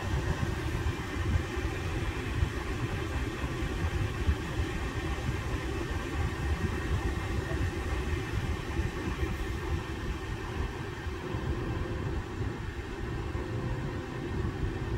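Kia EV6 air-conditioning blower running steadily in the cabin, a continuous low rushing noise.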